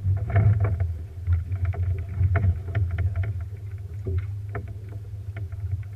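Small fishing boat on open water: a steady low rumble with frequent short knocks and slaps against the hull.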